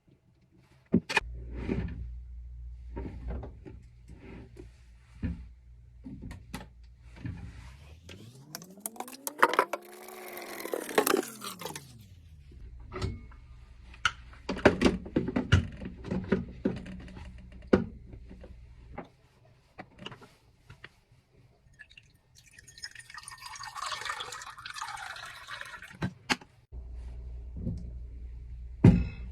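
Liquid being poured and a plastic drink bottle handled, with scattered clicks and knocks. In the middle a pour rings with a pitch that rises and then falls, and later comes a splashing pour.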